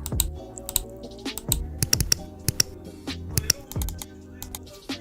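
Rapid, irregular clicking: Mechvibes software playing its sampled mechanical mouse-click sounds, several clicks a second, over background music with a beat.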